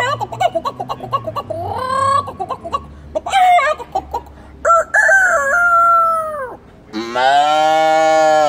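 A man imitating a chicken with his voice: short clucks in the first few seconds, then two long rooster-style crows in the second half, the last one held for about a second and a half.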